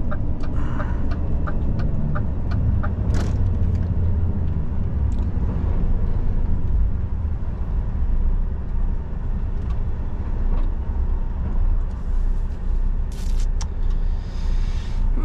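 Tatra Phoenix tipper truck's diesel engine running steadily under way, heard from the cab. A turn-signal indicator ticks about three times a second for the first couple of seconds as he moves over to the left, and there is a single knock about three seconds in and short hisses near the end.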